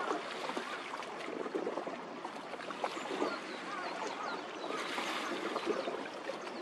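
Waterfront ambience: a steady wash of noise like water lapping at the shore, with scattered short high chirps. No engine or ship sound stands out.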